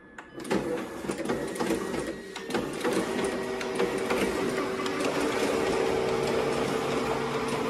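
Xerox colour copier starting a copy job as its Start button is pressed: the machine whirs into motion with a run of quick clicks and clatters as sheets are fed, then settles after a few seconds into a steady running hum.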